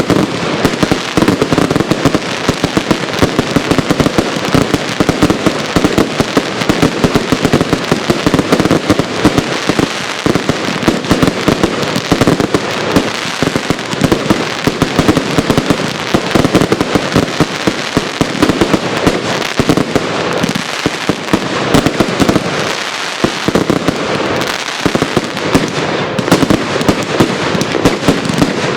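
Fireworks going off in a continuous barrage of rapid bangs and crackles, many a second, without a break.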